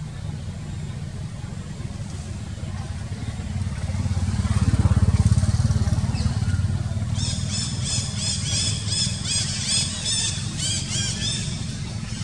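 A low engine rumble swells to its loudest about five seconds in and then eases off. From about seven seconds in, a quick run of repeated high chirps, about two or three a second, stops shortly before the end.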